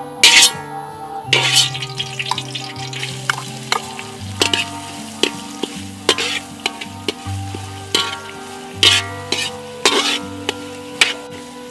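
Metal ladle scraping and clanking against an aluminium wok, with many sharp strikes, as sliced herbs are stir-fried with a sizzle. Background music plays underneath.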